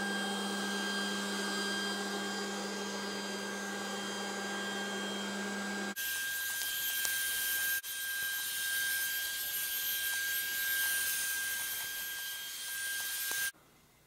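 Trifo Ollie robot vacuum cleaner running on carpet: a steady whir of its suction motor and brushes with a thin steady whine. About six seconds in the low hum drops away abruptly, leaving a higher, hissier whir, and the sound cuts out briefly near the end.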